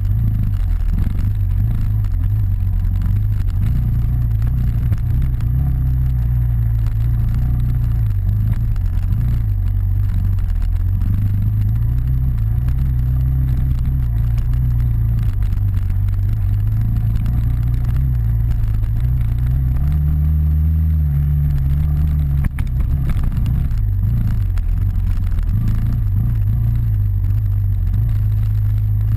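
Dirt bike engine running close to the microphone while riding, its pitch rising and falling with the throttle.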